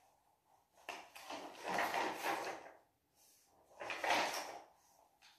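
Paper notes in a folder being handled and leafed through: two bouts of rustling, one about a second in and a shorter one about four seconds in.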